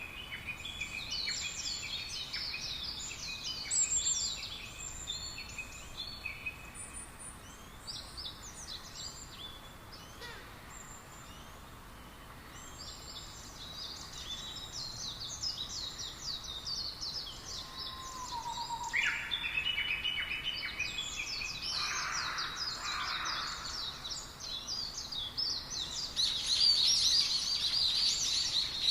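A flock of small birds chirping, many short high calls overlapping throughout, growing busier and louder near the end.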